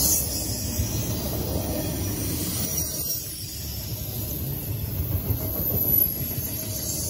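Double-stack intermodal freight train's well cars rolling past close by: a steady low rumble of steel wheels on rail, with a brief louder knock about six seconds in.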